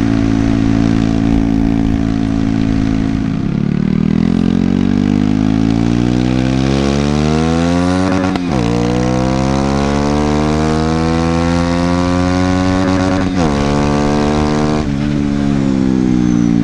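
Honda CBR125's 125 cc single-cylinder four-stroke engine accelerating through the gears. The revs hold steady, then climb, drop sharply at an upshift about eight seconds in, climb again to a second upshift about thirteen seconds in, and fall away near the end.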